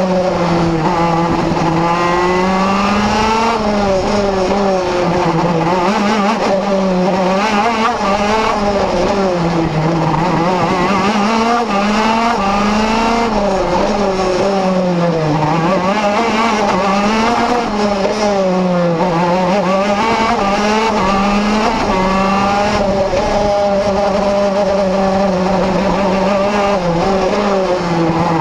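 Onboard sound of a Vortex RVXX 125cc two-stroke KZ shifter kart engine at racing speed, its note rising and falling over and over as it accelerates out of corners and drops off into them.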